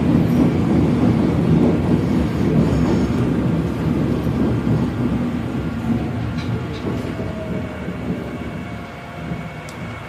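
Inside a moving metro train car: a steady low rumble from the carriage and its wheels on the track, getting gradually quieter. Past the middle a faint falling whine comes in, and near the end a thin steady high tone.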